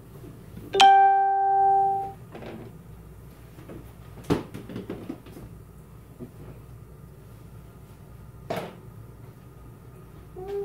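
Pots and pans being handled on a stove: a single loud ringing note about a second in, then scattered short knocks and clatters.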